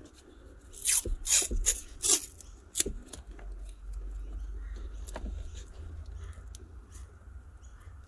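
Cloth harness tape being pulled off its roll and wrapped around a wiring loom: a cluster of short rasping tears about a second in and another shortly after, then faint handling noise over a low rumble.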